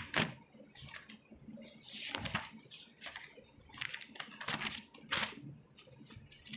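Faint, irregular rustling and clicking noises, a handful of short scrapes and taps with quiet gaps between.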